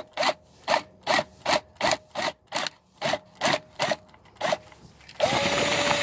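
Power drill with a spade bit boring into a dried gourd's shell. The drill runs in short bursts, about three a second, then about five seconds in it is held on and runs steadily as the bit cuts through.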